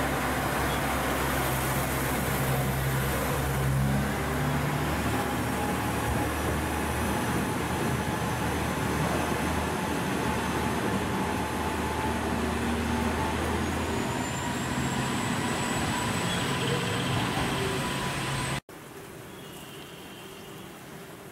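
KiHa 47 diesel railcar pulling out of the station: its diesel engine runs steadily under load over the rumble of the wheels, and the engine note fades after about 14 seconds. Near the end the sound cuts off suddenly to a quieter, steady background hum.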